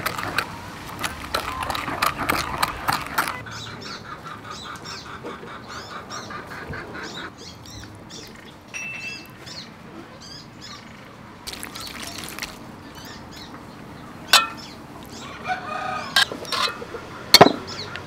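Chickens clucking and other birds calling in the background. A spoon stirs sauce in a bowl at the start, and two sharp clinks of metal tongs on a metal tray come about three seconds apart near the end.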